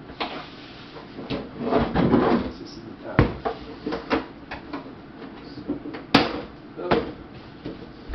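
Handling knocks and clatter of a plastic-and-steel folding table: a series of separate sharp clicks and thuds, a rattling scrape about two seconds in, and a sharp snap about six seconds in.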